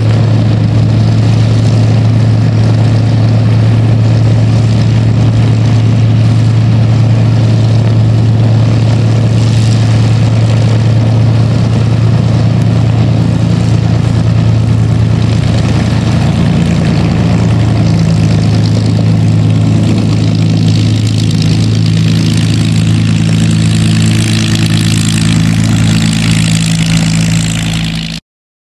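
Two-seat Spitfire's Rolls-Royce Merlin V12 engine running steadily on the ground with the propeller turning, a loud, even low drone. It cuts off abruptly near the end.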